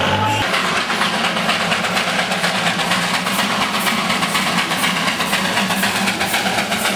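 Small 0-4-0 saddle-tank narrow-gauge steam locomotive working hard: quick, even exhaust chuffs, about four or five a second, over hissing steam.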